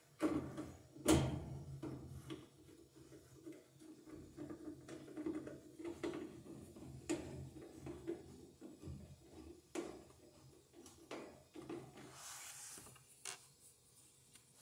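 Scattered clicks and knocks of a hand tool and sheet-metal panel as screws are driven into the back of a washing machine, a few sharper knocks standing out.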